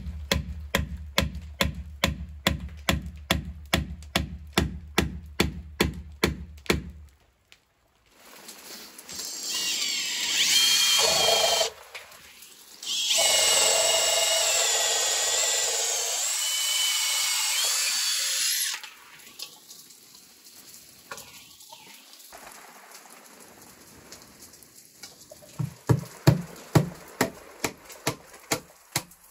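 Background music with a steady beat for the first seven seconds. Then a cordless drill bores a peg hole into a timber beam in two long runs with a short pause between. Near the end, a wooden mallet taps a dowel peg into the hole in quick, even strikes.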